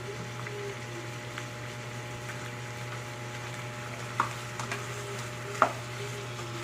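Chicken pieces sizzling steadily in a frying pan, with a low steady hum underneath. Two sharp knocks against the pan about four and five and a half seconds in.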